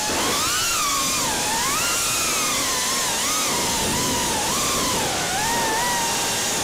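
Racing quadcopter's Brotherhobby Tornado T1 brushless motors and 5-inch three-blade propellers whining, the pitch rising and falling constantly with the throttle.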